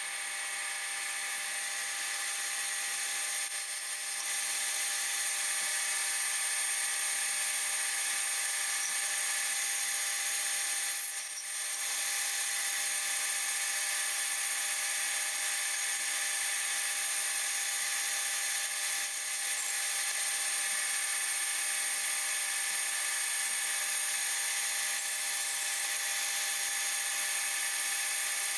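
Manual lathe running while a parting tool cuts into the spinning bar stock to part off small nuts: a steady machine whine made of several steady tones over a cutting hiss. The level dips briefly twice, about 4 and 11 seconds in.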